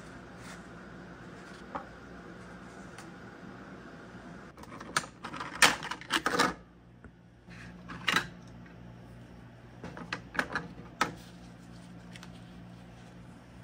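Cardboard-and-tape body panels of a model RC snowmobile being handled and pulled off its frame: scattered rustles, clicks and knocks, loudest in a cluster about halfway through, over a low steady hum.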